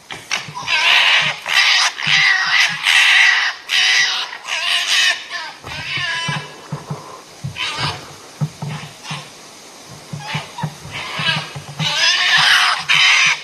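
Red foxes squabbling: harsh, rasping screeching and chattering calls in repeated bursts, with quieter low grunting in the middle stretch before the screeching returns near the end.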